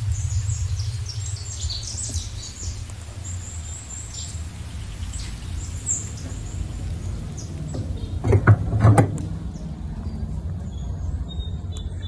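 Small birds chirping over a steady low rumble, with a few short, loud knocks about eight and a half seconds in.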